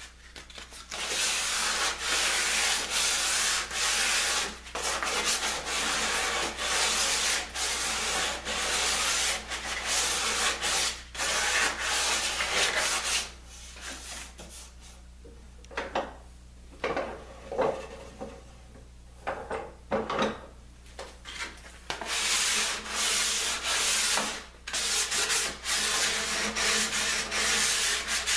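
Sandpaper rubbed by hand along the edge of a curved laminated wood ring, easing its edges in quick back-and-forth strokes. The sanding eases off for a few seconds around the middle, with a few lighter scrapes, then picks up again.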